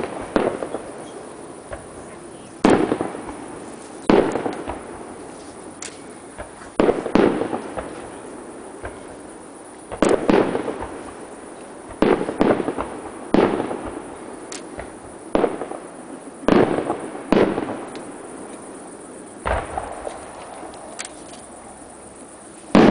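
Fireworks display: aerial shells bursting one after another, a sharp bang every second or two, each trailing off in an echoing rumble.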